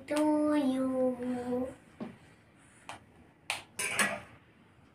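A child's voice holding a couple of long notes for about a second and a half. Then come several sharp clicks and taps of a knife against the cake plate, the last with a short hiss.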